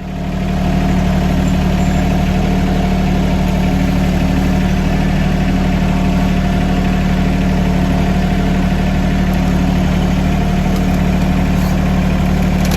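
Mahindra 1626 compact tractor's three-cylinder diesel engine running steadily at a constant speed.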